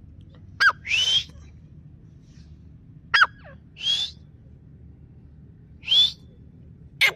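A caged partridge (teetar) calling in repeated two-part phrases: a sharp, quickly falling note, then a harsher note with a rising whistle in it, coming about every two to three seconds.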